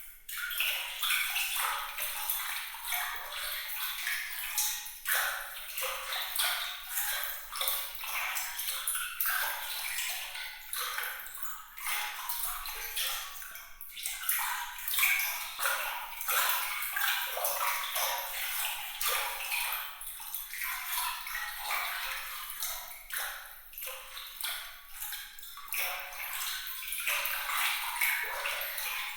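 Water trickling and splashing in a continuous stream of many small, bright droplet sounds, high-pitched with little low end, swelling and easing unevenly.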